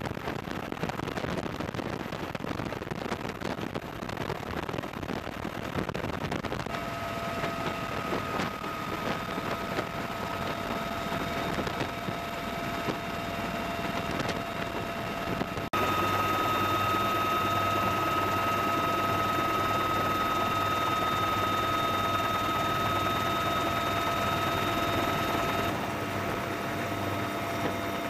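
Marine Corps H-1 helicopters (UH-1Y and AH-1Z) running in flight: rushing rotor noise at first, then a steady high turbine whine joins. About halfway in the sound jumps louder, with a low rotor throb under the whine.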